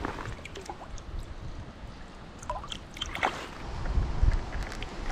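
Shallow river water sloshing and gurgling around a hand dipped into it, with low wind rumble on the microphone growing toward the end.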